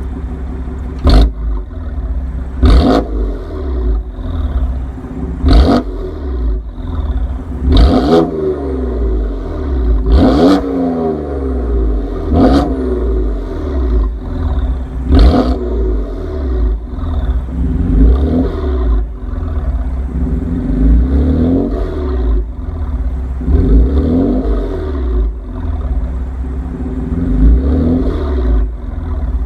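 BMW M4's S55 twin-turbo inline-six, fitted with an M Performance exhaust and catless downpipes, free-revved over and over, each rev rising and falling. Several revs in the first half end in a sharp crack, and a faint high turbo whistle follows some of the revs.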